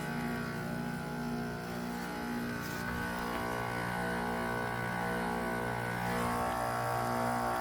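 A 2007 two-ton Carrier base-model heat pump's outdoor unit running through its defrost cycle: a steady hum made of several tones, its pitch pattern shifting about three seconds in and again near six seconds.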